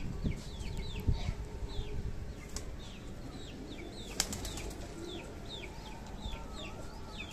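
Siraji pigeon flapping its wings as it flutters up off the concrete floor toward its loft, with many short, high, falling bird chirps repeating throughout.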